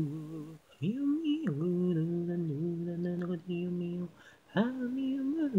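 Unaccompanied a cappella voice singing long held notes in short phrases about a second each, with brief breaks between them.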